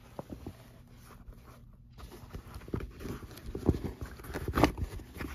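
A leather shoulder bag being handled and opened: a few faint clicks, then from about three seconds in a run of irregular rustles and soft knocks.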